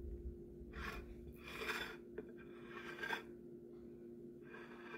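Quiet steady hum with four brief rustling noises.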